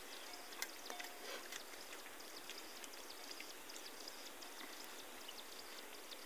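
Steady, faint rush of a stream, with a few small clicks over it.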